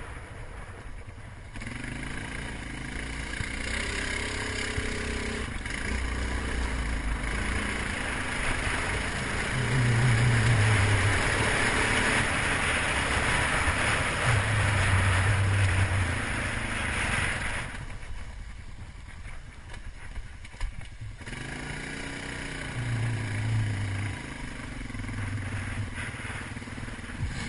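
Utility ATV's engine revving up and down as it is ridden, with rushing wind noise that is loudest through the middle. About two-thirds of the way in the engine sound drops away for a few seconds, then picks up again.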